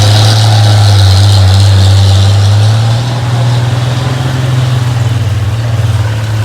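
Heavy truck's engine running loud and steady, close by. About three seconds in its pitch rises slightly and it gets a little quieter.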